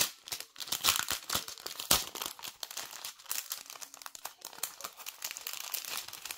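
Clear plastic packet of diamond painting drills crinkling and crackling as it is handled, with sharper crackles about one and two seconds in.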